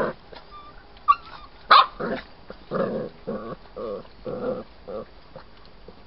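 Young Polish Tatra Sheepdog puppies barking: two sharp yaps a little over a second in, then a run of about six short barks, about one every half second.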